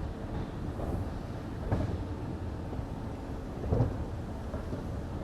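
Low, uneven rumbling noise, wind buffeting the microphone.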